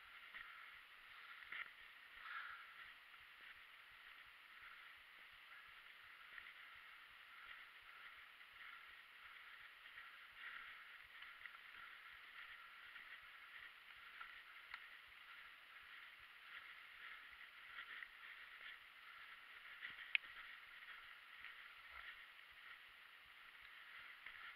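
Near silence: faint, steady rolling noise from mountain bike tyres on a wet, leaf-covered dirt trail, with scattered light ticks and one sharper click about twenty seconds in.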